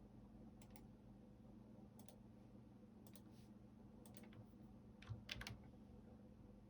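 Faint, sparse computer keyboard keystrokes: about a dozen separate clicks with pauses between them, the loudest a quick run of three about five seconds in, over a faint steady hum.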